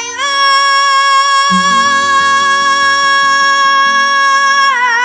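A boy's voice singing a flamenco fandango through a microphone, holding one long high note that breaks into a wavering melisma near the end. Flamenco guitar notes sound underneath from about a second and a half in.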